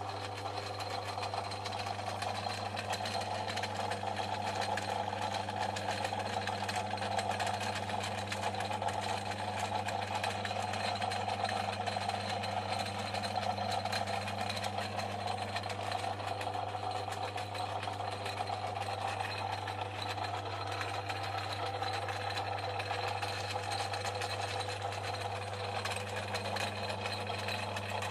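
Portass Model S mk2 mini lathe running steadily under power: its electric motor hums evenly while the drive and gear train turn.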